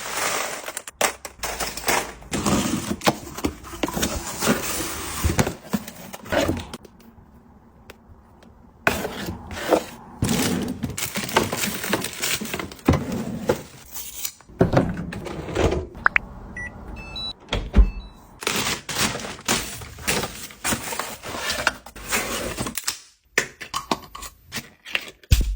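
Packaging being handled and unwrapped at close range: irregular crinkling, tapping and soft thunks, with a quieter pause about seven seconds in.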